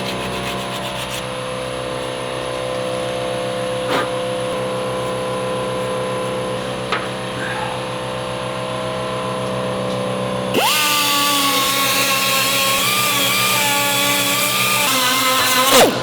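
A handheld electric power tool, such as a grinder or small sander, runs with a steady whine. About ten seconds in it bites into steel frame tubing, adding a loud hissing grind until near the end.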